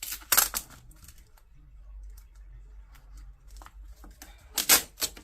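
Paper and card being handled and shuffled on a desk, rustling in two loud bursts: one at the start and another near the end, with light rustles between.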